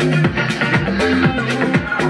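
Electronic dance music with a steady beat of about two kicks a second and a bass line, played from a phone through a Samsung soundbar set to surround mode.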